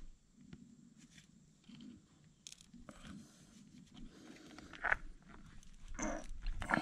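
Crimping pliers working a ring terminal onto a wire: soft handling and rustling, with sharp crunching clicks of the crimp about five seconds in and again near the end.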